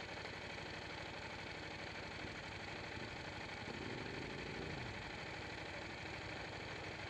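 Buell 1125R's V-twin engine idling steadily, with an even low pulsing.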